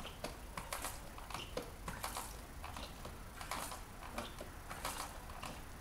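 Faint, irregular small clicks and rustles of a hand handling the fuel-line fittings on a diesel engine that is not running.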